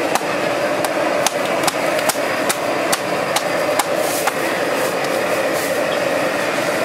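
Noodle dough being slapped and beaten on a steel worktop while hand-pulled noodles are made: sharp knocks about two or three a second that stop about four seconds in, over a steady background rush.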